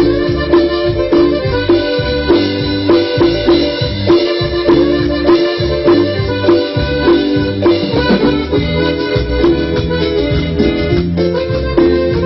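Instrumental music led by an accordion, with a steady beat.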